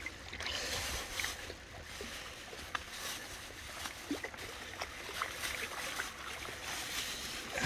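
Creek water running and trickling in a steady wash, with scattered small clicks and knocks.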